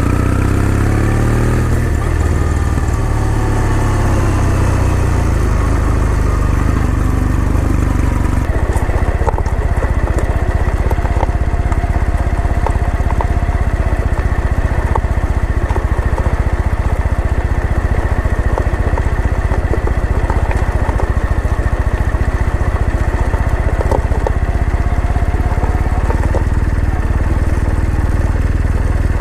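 Kawasaki W800 motorcycle's air-cooled parallel-twin engine running, its note climbing and changing pitch in the first couple of seconds, then holding steady.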